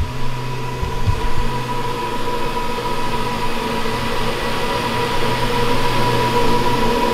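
Rotary floor sander running steadily on woodblock parquet, a continuous motor drone with a steady high hum.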